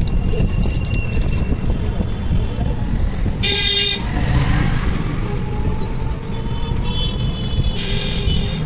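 High-pitched vehicle horn honking three times: at the start, about three and a half seconds in, and near the end. Underneath runs a steady low rumble of road noise from a ride in an open rickshaw.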